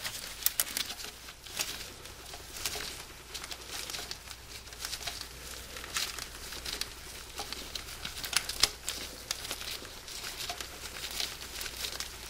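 Irregular rustling, crinkling and small clicks as a hand and sleeve work among the rubber hoses and corrugated plastic wiring loom in a car's engine bay, taking out the starter's upper bolt by hand.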